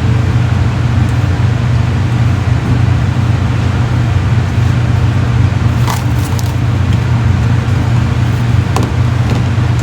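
Steady low hum of a ventilation fan running, with a couple of light clinks about six and nine seconds in.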